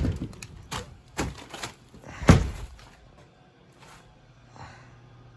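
A handful of knocks and thuds in the first two and a half seconds, the loudest a little over two seconds in, followed by only faint sounds.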